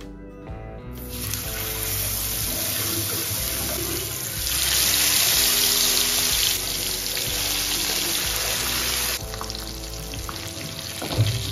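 Masala-coated fish sizzling as it fries in hot oil in a pan: a steady hiss that starts about a second in, loudest in the middle.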